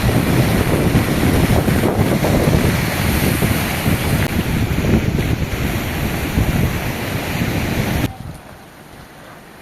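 Heavy rain with strong wind buffeting the microphone, a loud, rough rushing that drops suddenly about eight seconds in to a much quieter, steady patter of rain.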